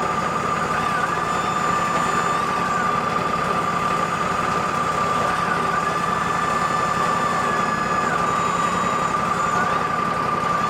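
Wood-Mizer LT40 band sawmill running steadily, an engine drone under a steady high-pitched whine.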